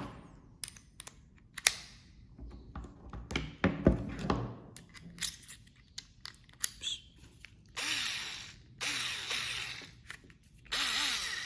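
Plastic clicks and knocks as screwdriver bits and the extender are handled, then a Xiaomi Mijia cordless electric screwdriver's motor whirring in about three short runs in the second half.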